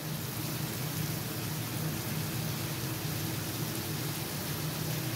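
Vegetables (onion, capsicum, peas and tomato) frying in oil in a wide black pan, a steady sizzle with a low hum underneath.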